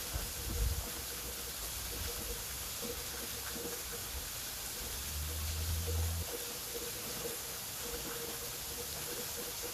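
Waterfall: a steady, even rush of falling water. A brief low rumble sounds about five seconds in.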